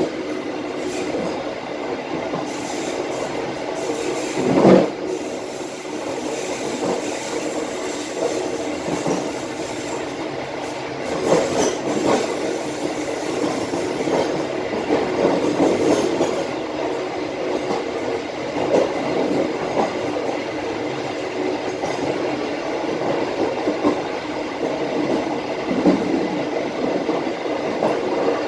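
Bengawan passenger train running along the track, heard from its last car: a steady rumble of steel wheels on the rails, broken by occasional louder knocks, the loudest about five seconds in.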